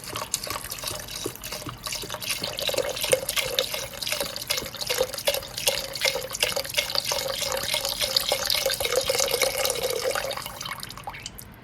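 Chicken broth being poured into a pot of chopped soup ingredients, splashing steadily and stopping about ten and a half seconds in.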